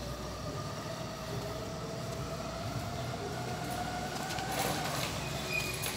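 Motorcycle engine running as the bike approaches, its note rising gradually and then dropping away about five seconds in.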